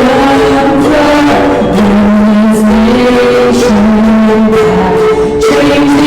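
Worship song: voices singing held notes with music.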